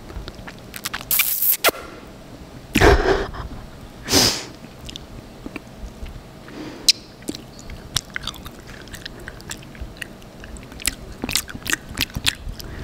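Close-miked mouth sounds of eating sticky honey off a spoon: wet smacks and many small sticky clicks of lips and tongue. A few louder smacks come about 1, 3 and 4 seconds in.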